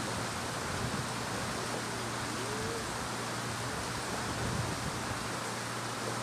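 Steady, even hiss of background noise with a faint low hum beneath it; no speech.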